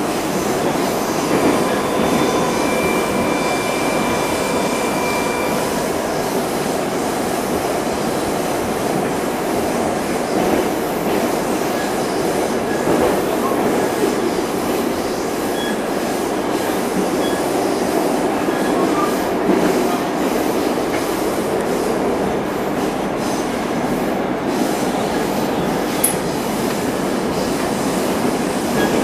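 Running noise heard from inside a Metrowagonmash 81-740.4/741.4 "Rusich" metro car under way: a steady rumble of wheels on rails, with a thin high whine from about two seconds in, lasting a few seconds.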